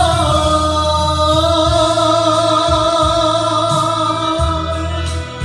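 A man singing a Mandarin ballad into a karaoke microphone, holding one long note at the end of a chorus line over a backing track with a steady bass beat. The note ends about four and a half seconds in, and the backing track carries on.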